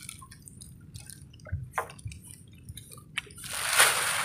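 Seawater dripping and splashing off a wet fishing net as it is hauled hand over hand into an outrigger boat: scattered small drips and patters, with a louder rush of splashing near the end.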